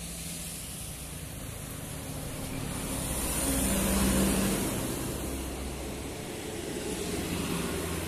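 Large tourist coach driving past close by, its diesel engine running and tyres hissing on the road, loudest about four seconds in as it passes. A second, smaller bus follows and goes by near the end.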